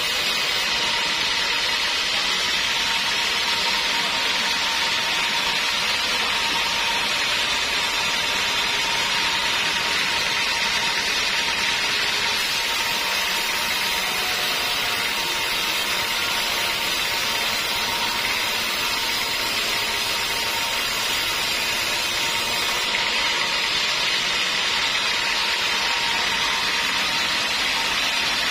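Sawmill band saw ripping lengthwise through a teak log, the blade running steadily in the wood. The sound is an even, unbroken hiss with a thin steady whine under it.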